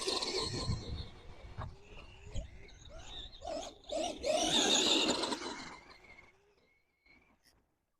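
Arrma Gorgon RC monster truck's electric motor whining up in short bursts of throttle, with tyres churning dirt; the loudest burst comes about four seconds in, and the sound fades out about six seconds in.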